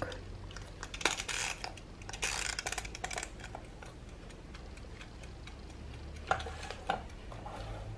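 Plastic mechanical wind-up kitchen timer being twisted to about 40 minutes, its dial scraping as it turns, then ticking steadily. Two knocks come near the end as it is set down on the counter.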